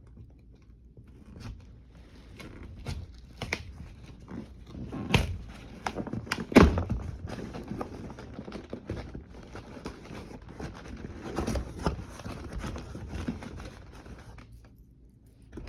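Cardboard package and its packing being opened and handled: irregular rustling, tearing and crinkling with scattered knocks, the loudest about two thirds of the way through the first half.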